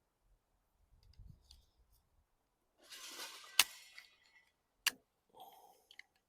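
Screwdriver scraping and clicking against a carburetor while prying at a stuck cartridge, with a scrape about three seconds in, a sharp click in the middle of it and another click a second later.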